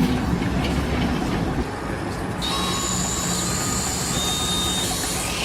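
Heavy machinery running with a steady rumble. About two and a half seconds in, the sound changes abruptly and steady high-pitched whines join the rumble.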